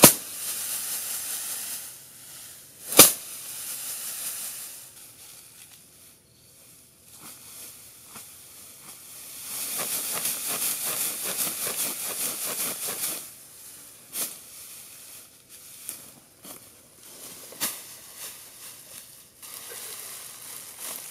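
Long grass being pulled up and bundled by hand: the blades rustle and swish, with several sharp snaps as stems break, the loudest about three seconds in.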